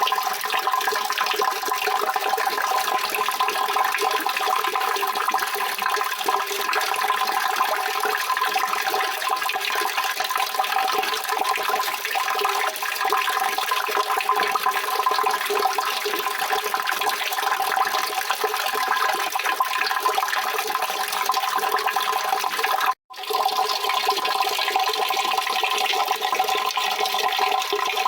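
Steady rushing of running water, with no change in strength; it cuts out for an instant about 23 seconds in and resumes at once.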